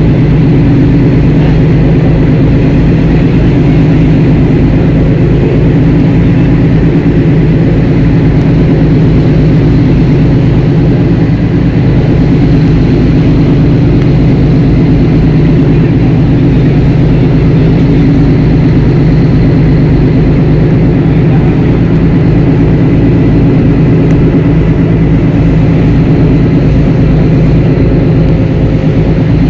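Boat engine running steadily, heard close and loud from on board, with a fast, even low throb and no change in speed.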